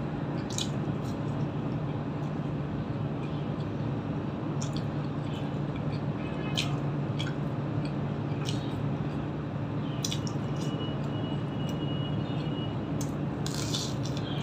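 Close-miked eating sounds from a person eating curry, rice and fried pakoda by hand: wet squishes and scattered sharp mouth clicks and smacks while chewing, over a steady low hum.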